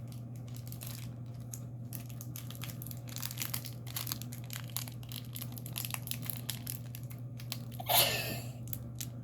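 Foil trading-card booster pack wrappers crinkling and tearing as packs are opened and cards handled: scattered crackles with a louder rip or rustle about eight seconds in, over a steady low hum.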